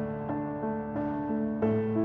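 Instrumental music: a melody of struck notes, about three a second, over sustained low notes.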